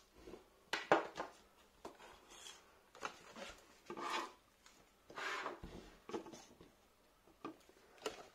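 Hands handling a cardboard box and a small plastic power adapter on a table: a string of short rubs, scrapes and light knocks, spread unevenly.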